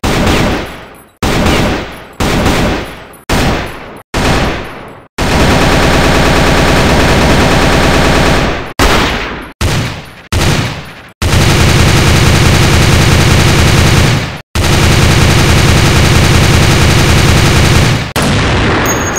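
Recorded gunfire sound effects: about five single shots roughly a second apart, each with a long echoing tail, then a few seconds of sustained automatic fire. A few more single shots follow, then two long bursts of automatic fire with a deep, heavy low end, and a last shot fading out near the end.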